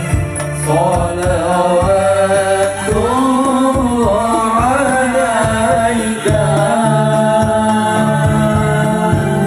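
Music: a single voice sings long, sliding held notes over a steady low accompaniment.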